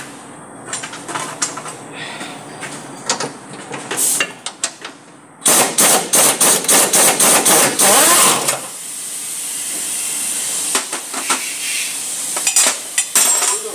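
Pneumatic impact wrench hammering in a loud, rapid burst of about three seconds on a lower control arm bolt, after several seconds of tool clinks and knocks. A steady hiss follows.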